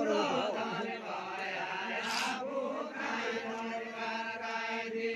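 A group of men singing a deuda folk song together in a chanted style, with drawn-out lines and held notes.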